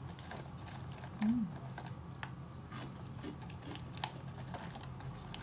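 Eating sounds: scattered soft clicks and taps while chewing ice cream, with a short hummed 'mm' about a second in, over a faint steady low hum.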